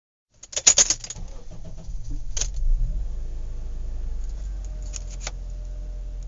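Inside a moving car: a steady low engine and road rumble, with sharp rattles and jangles of loose items being shaken about. The loudest jangling burst comes about half a second in, with single rattles later.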